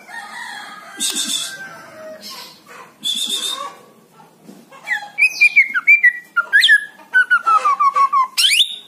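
White-rumped shama singing: a few short harsh, raspy notes, then from about halfway a loud run of clear whistled notes and glides, with a fast falling series of rapid notes near the end and a sharp rising whistle at the close.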